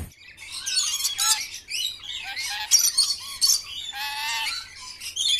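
Several birds chirping and calling in quick, overlapping phrases, with a longer, fuller call about four seconds in.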